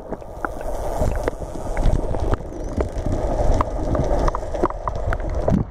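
Muffled underwater noise: a steady rush of water against a submerged camera, with many sharp clicks scattered through it. It cuts off abruptly just before the end.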